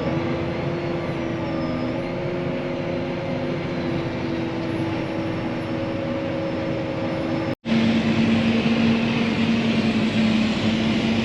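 Harvest machinery running with a steady engine drone and hum. About two-thirds of the way through it cuts abruptly to a louder drone with a lower, steady hum.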